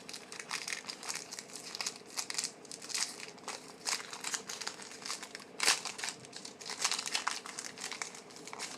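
Crinkling and rustling of a trading-card pack's foil wrapper as the cards are handled, in a string of small irregular crackles with a louder crinkle about halfway through.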